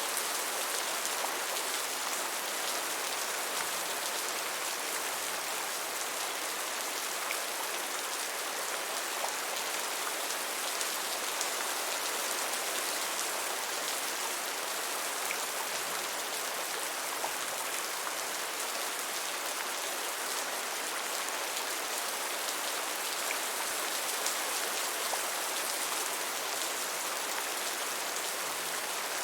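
Steady rain falling on a surface, an even hiss with scattered faint drop taps.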